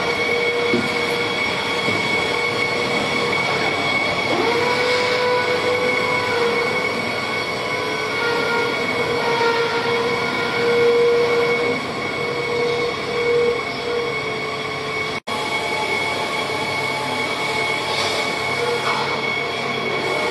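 Chili optical color sorter running: a steady mechanical rumble with held whining tones. It breaks off for an instant about fifteen seconds in.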